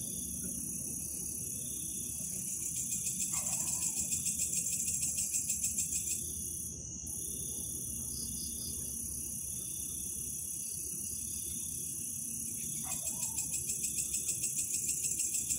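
Steady high-pitched chorus of night insects, crickets. A faster pulsing layer swells in about two seconds in, fades around six seconds, and returns near the end. Two faint short falling calls are heard, at about three and thirteen seconds.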